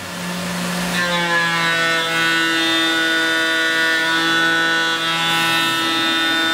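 TTS Shear Hog face mill on a Tormach CNC mill facing an aluminum block. A steady pitched whine with many overtones, over a lower hum, builds over the first second and then holds even and unbroken.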